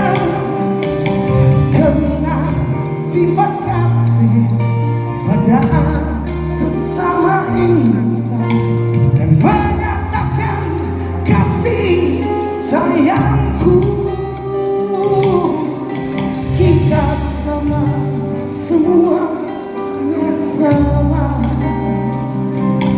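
Live band playing a Malay pop song, with a lead singer's voice over sustained bass notes.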